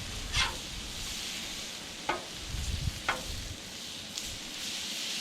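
Smash-taco meat patties and tortillas sizzling steadily on a hot Blackstone flat-top griddle, with three short sharp sounds about half a second, two and three seconds in.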